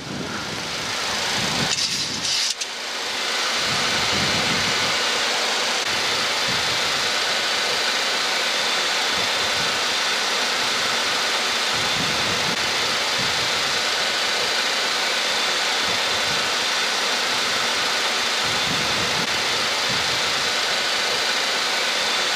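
Steady rushing noise inside an airliner's cockpit in flight on the approach, the hiss of airflow and engines.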